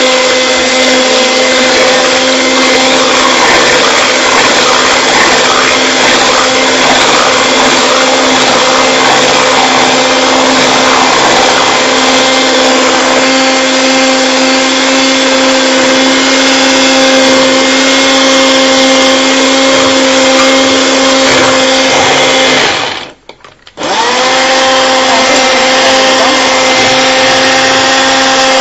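Electric hand mixer running at a steady pitch, its beaters whipping cream in a bowl. The motor cuts out about 23 seconds in and spins back up a second later.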